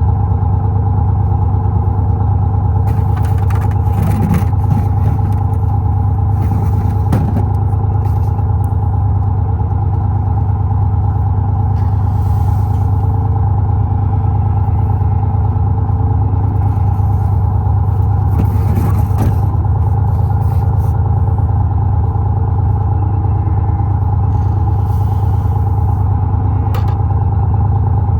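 A vehicle engine running steadily, a deep constant hum with no revving, with a few short clatters and knocks now and then.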